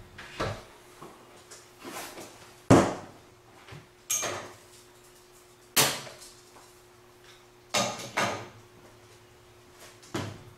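A series of sharp knocks and clunks from objects being handled and set down, about seven spread unevenly, over a faint steady electrical hum.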